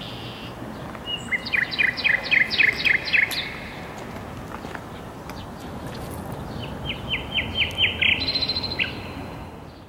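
A songbird calling in two runs of quick, repeated chirping notes, about four a second, over a steady background rush; the sound fades out at the end.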